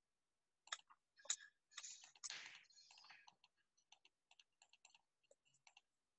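Faint clicking of a computer keyboard and mouse: a quick run of keystrokes and clicks, densest about two seconds in, then scattered single clicks.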